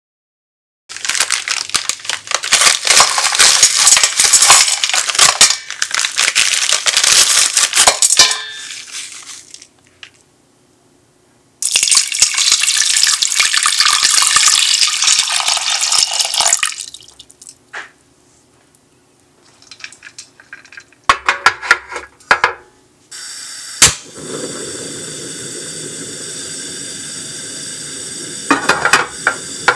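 Rock sugar lumps and water going into a stainless steel pot: a long clattering stretch, then a steady stream of water poured in over the sugar. Later come a few clicks and one sharp click, followed by a steady even hiss as the pot goes on the heat.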